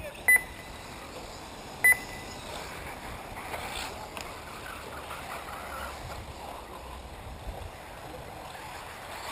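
Two short, loud electronic beeps about a second and a half apart, over a steady low background noise.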